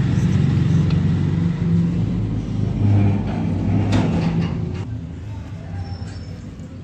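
A low, steady engine-like hum that fades about five seconds in, with a few sharp knocks, the clearest about four seconds in, as a rocking pizza cutter's blade presses through a pizza onto a metal baking pan.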